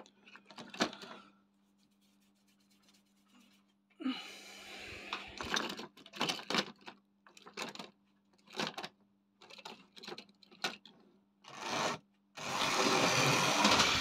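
Tri-ang OO-gauge model locomotive running on track, its small electric motor whirring in short bursts with clicks, then a steady louder run of about two seconds near the end as it drives onto the turntable. A faint steady low hum sits underneath.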